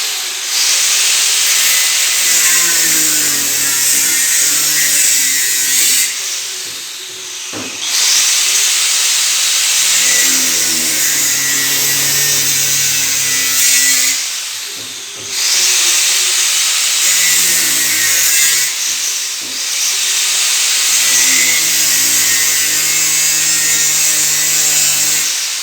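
Electric power tool running under load in three long stretches of several seconds with short pauses between, its pitch shifting as it works, as in cutting or sanding during a renovation.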